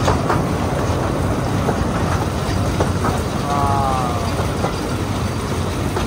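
Narrow-gauge train running along the track, heard from an open coach window: a steady low rumble with scattered clicks of the wheels over rail joints. A short high falling tone is heard about halfway through.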